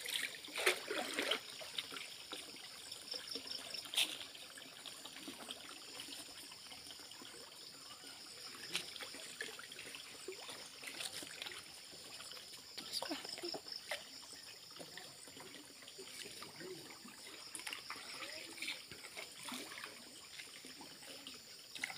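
Muddy pond water trickling and lapping as a person wades waist-deep and sweeps a landing net through it, with scattered splashes, the loudest near the start and about four seconds in.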